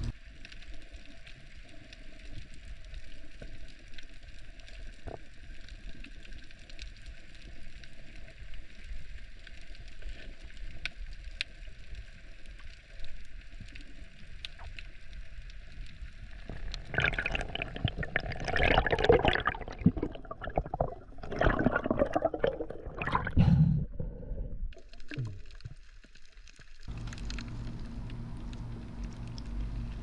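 Muffled underwater water noise picked up by a submerged camera, with a stretch of louder, irregular gurgling and bubbling about halfway through. A low steady hum comes in near the end.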